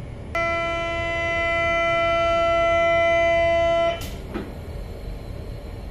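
Door-closing warning buzzer of an MI84 RER B train: one steady, buzzy tone lasting about three and a half seconds, which cuts off with a sharp knock and a brief hiss. A low train rumble runs underneath.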